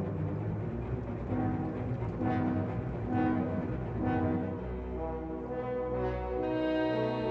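Orchestral background music with brass (horn-like) notes held over a low sustained bass.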